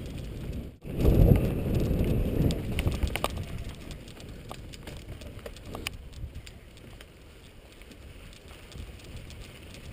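Mountain bike rolling over a rough dirt track, a low rumble with scattered crunches and ticks from the tyres and frame. The sound cuts out for a moment a little under a second in, comes back louder for about two seconds, then settles into quieter rolling noise.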